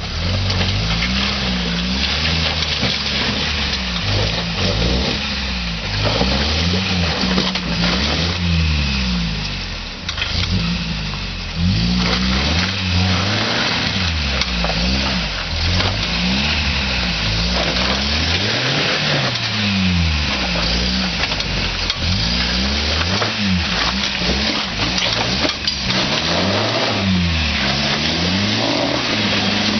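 1985 Toyota 4x4 pickup's engine revving up and down over and over as it crawls up a rocky, muddy trail, with scattered knocks mixed in.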